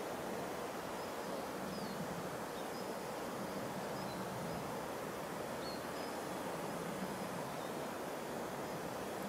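Steady woodland background hiss with a few faint, short, high chirps from small birds in the first half.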